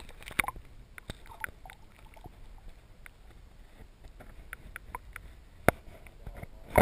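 Muffled underwater sound picked up by a submerged camera: a quiet bed of noise with faint, scattered clicks and knocks, a sharper knock a little before the end and a louder one right at the end.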